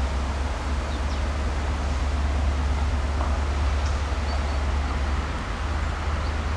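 Distant diesel locomotive hauling a tank wagon, approaching slowly: a steady low rumble under a hiss of wind, with a few faint bird chirps.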